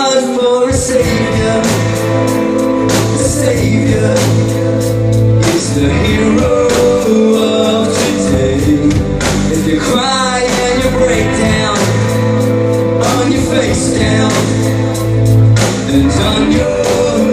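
A rock song plays, with held notes, a steady bass, regular drum beats and a singing voice coming in near the middle.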